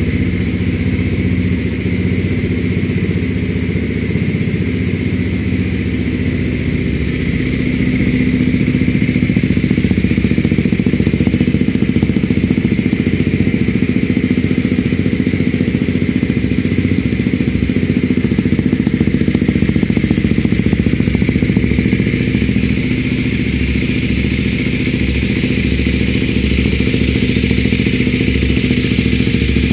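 Kawasaki Ninja 250RR Mono's single-cylinder four-stroke engine running steadily through a Yoshimura R-77D slip-on exhaust, mostly at idle. It grows a little louder about a quarter of the way in and settles back about three quarters of the way through.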